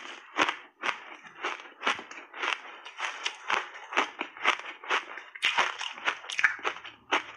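Frozen mixed-berry ice chunks coated in matcha and milk powder being chewed close to a clip-on microphone: crisp crunches about twice a second.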